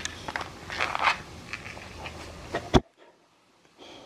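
Boxer dog mouthing close to the microphone: irregular wet clicks and scrapes. A sharp knock comes a little under three seconds in, and the sound then drops out abruptly.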